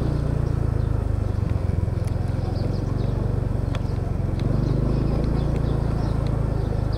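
Motor scooter engine running steadily at low riding speed, a low even hum, with a few light clicks.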